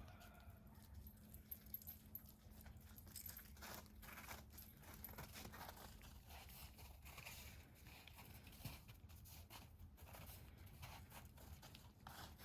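Near silence: faint light rain, with scattered small ticks and a low steady hum.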